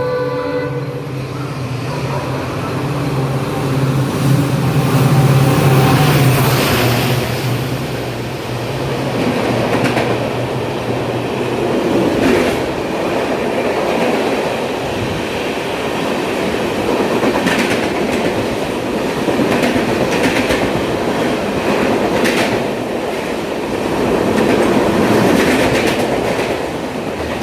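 A train passing close by at speed: a steady rumble of wheels on rail, with a strong low hum in the first several seconds and repeated clacks as the wheels cross rail joints.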